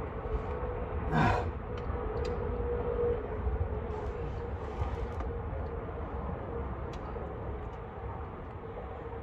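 A steady low machine hum with a held mid-pitched tone, under a few faint clicks and scrapes of a tool being worked on a stuck oil filter.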